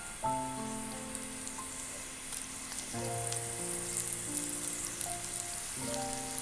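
Spinach-and-potato kofta balls frying in hot vegetable oil in a kadai: a steady sizzle with small crackles as the balls go in one after another. Soft background music with held notes plays over it.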